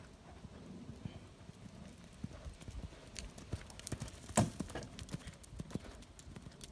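Hoofbeats of a horse moving over arena sand, a run of irregular soft hits, with one louder hit a little over four seconds in as the horse passes close by.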